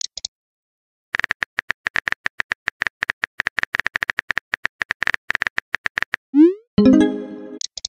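Texting-app sound effects: a rapid run of keyboard typing clicks for about five seconds, then a quick rising whoosh as the message is sent, followed at once by a short chime that rings and fades.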